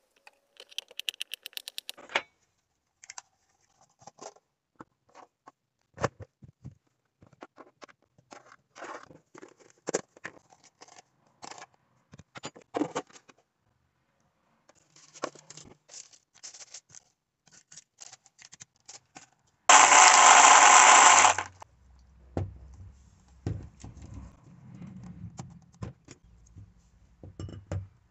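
Food-preparation handling sounds: scattered taps, knocks and rustles as a banana is peeled over a plastic cutting board, and cocoa powder and milk go into a glass blender jar. Just before two-thirds of the way through, a loud rush of noise lasts about two seconds. Near the end, the jar and the blender's blade lid are handled.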